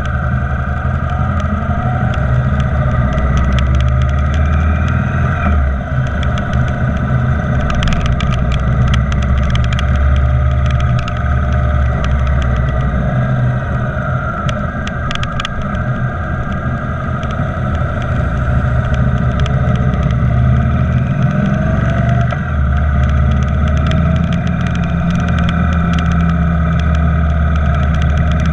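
Motorcycle engine running while riding in traffic, its pitch slowly rising and falling with speed, over steady road noise, with a few short clicks about a third and half of the way through.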